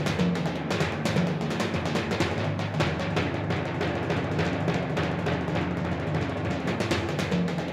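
Music led by timpani and drums, rapid drum strokes over held low notes.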